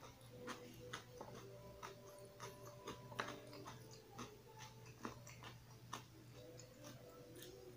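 Quiet close-up eating sounds: soft chewing of eggplant steak, with scattered small wet mouth clicks and smacks about once or twice a second, over a faint steady low hum.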